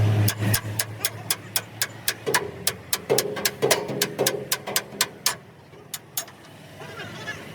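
Hammer blows on steel, about four a second, some leaving a short metallic ring; they stop about five seconds in, with two more strikes shortly after.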